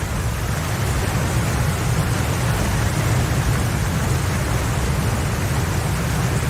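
Heavy storm rain and water: a steady, dense rushing noise with a strong low rumble underneath.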